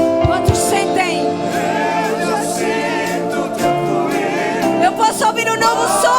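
Live worship music: a band playing sustained chords while a congregation sings along in many voices.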